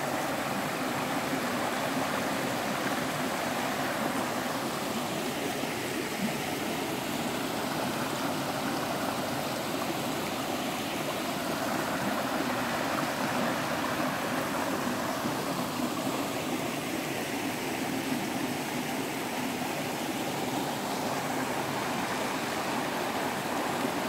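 Mountain stream flowing over rocks: a steady rush of water.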